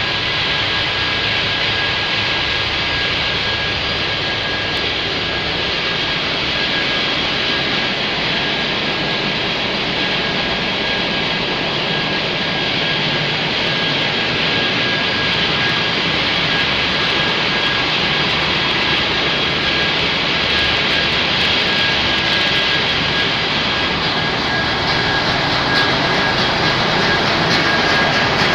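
Machinery in the engine room of a very large crude oil tanker running: steady, loud mechanical noise with a thin, high whine held constant through it.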